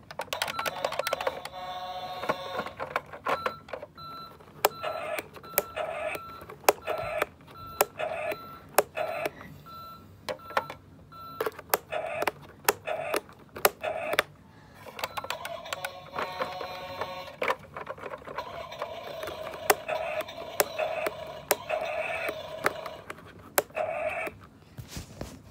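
Electronic beeping in a steady repeated pattern, short tones at two pitches, with many sharp clicks in between.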